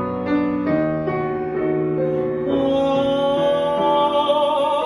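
Piano accompaniment playing a short run of chords, then a singer's long held note joining the piano about halfway through, swelling into a wide vibrato near the end.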